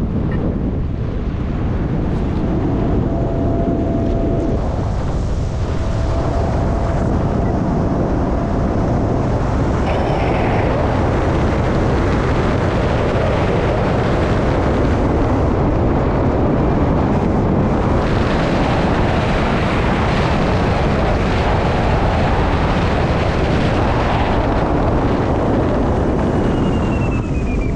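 Airflow rushing and buffeting over the camera microphone of a hang glider in flight, a steady loud roar of wind noise that grows louder and brighter about two thirds of the way through as airspeed picks up.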